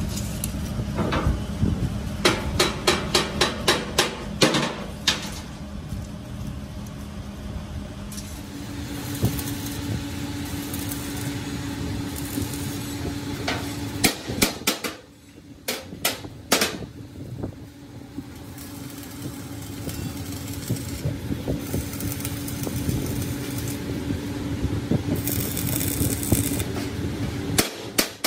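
Hand hammer blows on steel: a quick run of strikes about three a second in the first few seconds, and another cluster of strikes about halfway through, over a steady workshop hum.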